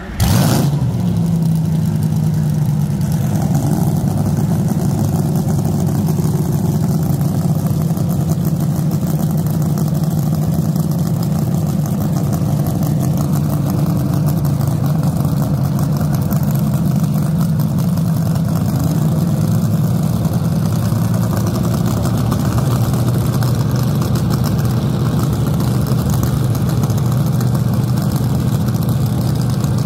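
Top alcohol dragster engine catching suddenly and then idling loudly and steadily, with no revving.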